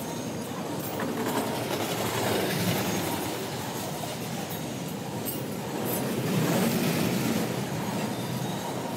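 Double-stack intermodal freight train's well cars rolling past, steel wheels on the rails giving a steady rumble that swells twice.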